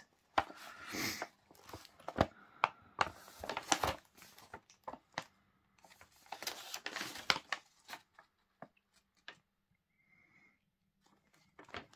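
Sheets of printer paper rustling and crinkling as they are handled and a page is turned over, in two spells of rustling, the second about six seconds in, then a few light taps.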